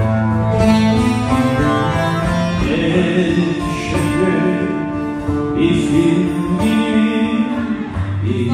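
Live Turkish folk music: saz (bağlama) and acoustic guitar playing together, with a voice singing a wavering melodic line from a few seconds in.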